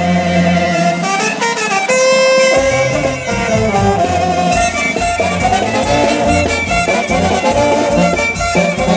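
Band music: sustained melody lines over a steady bass beat.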